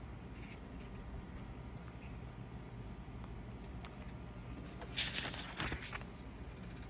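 Faint ticks of paper being handled, then about five seconds in a brief, louder paper rustle as a page of a Stalogy B6 notebook is turned.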